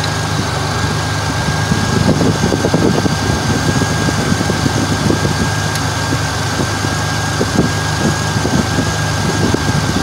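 2002 Ford Ranger engine idling steadily, with a thin steady high-pitched whine alongside it.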